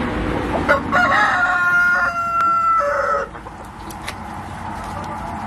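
A rooster crows once, a single call of about two and a half seconds starting near the first second.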